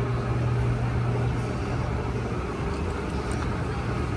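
Steady low hum of escalator machinery, one strong low tone with a fainter higher tone above it, over a haze of shop background noise.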